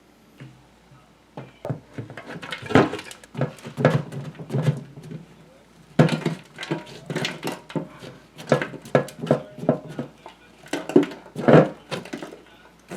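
Irregular clanks, knocks and rattles of washing-machine parts and tools being handled during disassembly.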